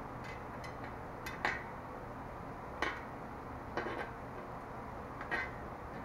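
Light metallic clinks and taps, about eight in all and uneven, from a bicycle rear wheel and its cassette being handled, over a steady low hum.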